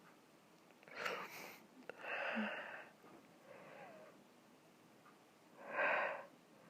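A person's hitching, wheezy breaths as a sneeze builds but stays stuck without coming out: four separate gasps a second or two apart, the third faint and the last the loudest.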